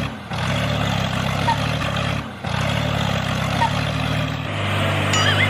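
The small motor of a homemade mini tractor running steadily, dropping out briefly twice where the footage is cut.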